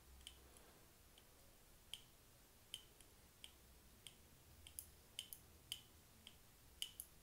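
Faint, irregular small clicks, about a dozen, as a carburetor float is tilted up and down on its hinge by hand, the inlet needle moving with it.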